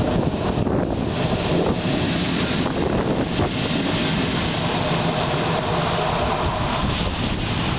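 MÁV class V63 electric locomotive passing close by, its wheels rumbling on the rails with a steady hum, and wind buffeting the microphone.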